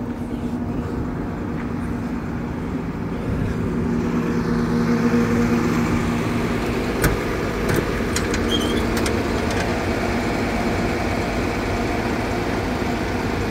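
Freightliner crane truck's engine idling steadily, growing louder about four seconds in. A few sharp clicks and knocks come between about seven and nine seconds in, as a metal side-compartment door is unlatched and opened.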